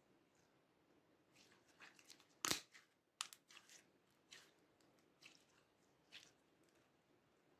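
Hands squeezing and folding glossy pink slime, giving faint sticky pops and crackles. The two loudest pops come about two and a half and three seconds in.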